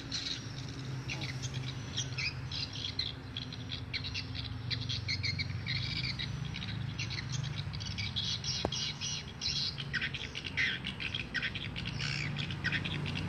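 Many swiftlets twittering in quick, dense high chirps as they circle a swiftlet house, mixed with the building's recorded swiftlet lure call, over a low steady hum.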